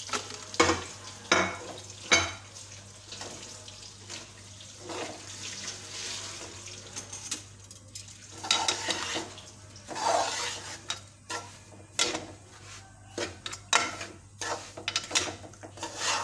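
A spatula and spoon scraping and clinking irregularly against a metal cooking pot as semolina is stirred into hot oil to roast it, with a light sizzle from the oil.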